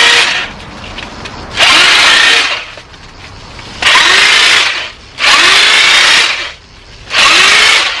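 Handheld corded electric saw cutting into thick ivy, run in short bursts of about a second each: it starts up four times, with the motor spinning down in the gaps between.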